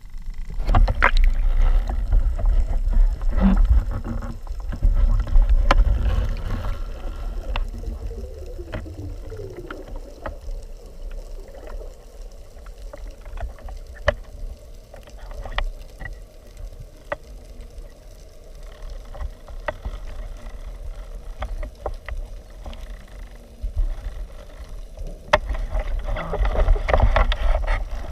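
Underwater sound picked up by a freediver's camera: water rushing over the housing at the start and again near the end, with scattered sharp clicks and a faint steady hum in between.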